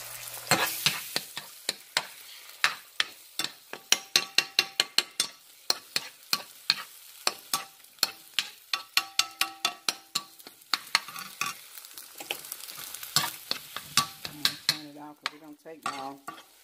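A spoon stirring scrambled eggs in a nonstick frying pan: rapid, irregular taps and scrapes against the pan, some ringing briefly, over a light sizzle of the eggs frying.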